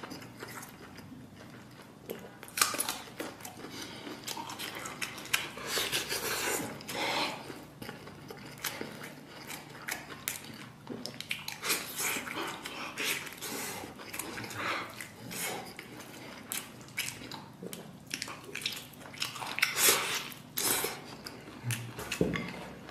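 A person eating braised pork elbow close to the microphone: chewing and biting, with utensils clicking irregularly against the dishes.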